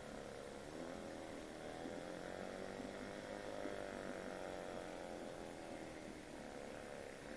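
Old Mercury 7.5 hp two-cylinder two-stroke outboard motor running steadily, its pitch drifting slightly up and down as the engine speed wavers.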